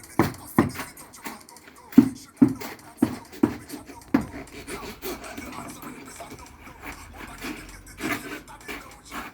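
Hammer knocking on concrete formwork, sharp knocks in quick pairs through the first four seconds or so, tapping the form to settle the concrete inside. After that comes softer, irregular scraping and rubbing.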